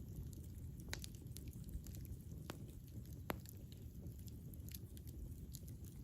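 Campfire burning: a low steady rumble of the flames with scattered crackles and pops from the burning wood, the sharpest pops about a second, two and a half seconds and three and a quarter seconds in.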